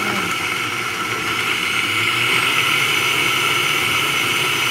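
Vitamix blender motor running steadily, blending chopped apple with water, growing a little louder about two seconds in.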